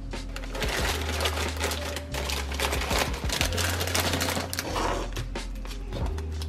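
Crinkling and rustling of plastic snack bags being packed into a wire pull-out pantry drawer: a dense run of irregular crackles. A steady bass line of background music runs underneath.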